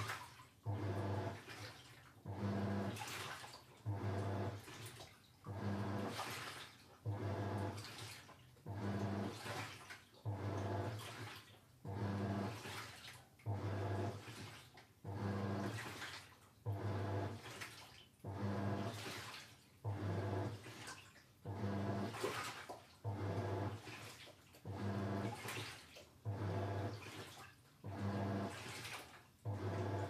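Toshiba Star Crystal Drum 5 kg washing machine in its wash stage: the motor churns the load in short surges, about one a second, each with a low motor hum and water sloshing and splashing in the tub.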